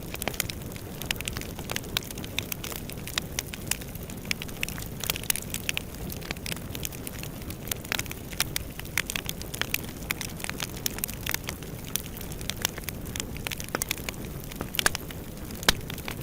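Fire burning in a fireplace: a steady low rumble of flames with frequent sharp, irregular crackles and pops.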